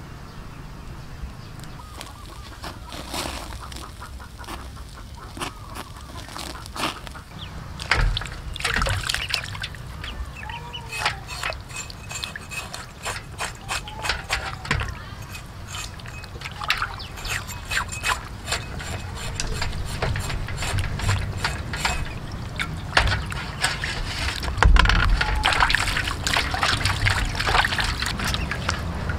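Fire crackling under the oxtail as it is singed, then water sloshing and splashing in a metal basin as the oxtail is scrubbed by hand, in repeated bursts.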